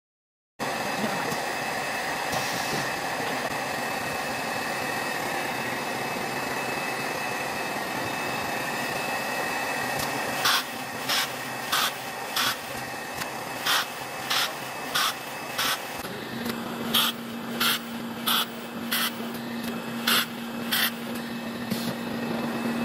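Busbar laser welding station running: steady machine noise with a thin high whine, then from about ten seconds in a run of short, sharp hissing bursts, one or two a second, as the 6,000-watt laser welds the busbars to the battery cell terminals spot by spot. A low steady hum joins in about two-thirds of the way through.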